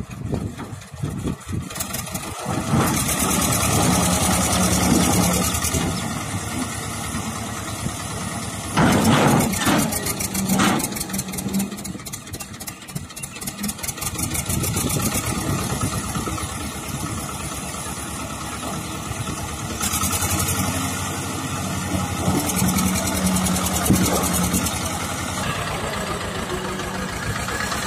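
HMT 1811 18 hp tractor's diesel engine labouring under a heavy trailer load, its revs rising and falling in surges, the loudest about nine to eleven seconds in.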